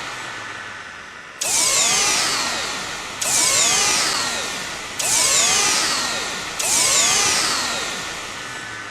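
Sci-fi sound effects made from a recorded vacuum cleaner motor: four hits, each starting suddenly with a cluster of sweeping tones, some rising and some falling, and fading away over a second or two.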